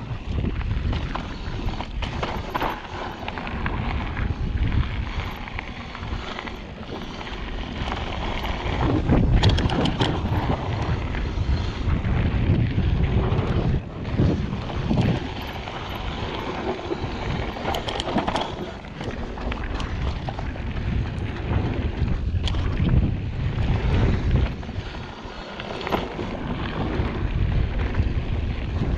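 Wind buffeting the microphone and the rumble of knobby tyres on dirt while a mountain bike is ridden down a trail, with a few sharp rattles and knocks from the bike over bumps, around ten seconds in and again near the middle.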